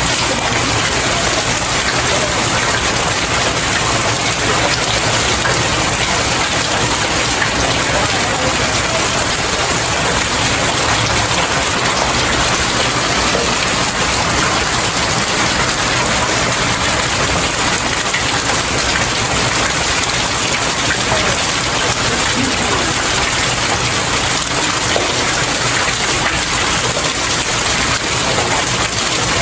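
Steady rain falling on stairs: an even, unbroken hiss of many drops hitting the steps.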